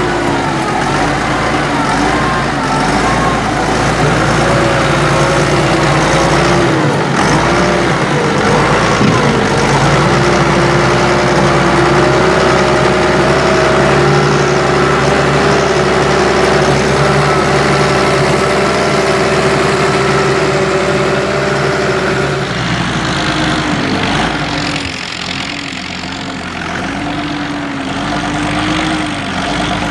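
SAME Titan 190 tractor's diesel engine working under load as it pulls a two-furrow plough through the soil. Its pitch wavers at first, then holds steady. About two-thirds of the way through, the engine drops to a quieter, wavering note, and it swells again near the end.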